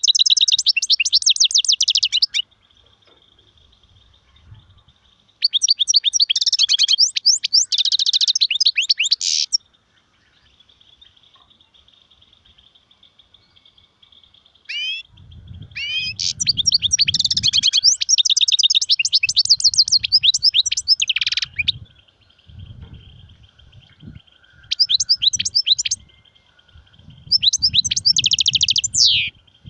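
European goldfinch singing: bursts of rapid, high twittering trills, five song phrases of one to five seconds each. Some low dull thumps come in the second half.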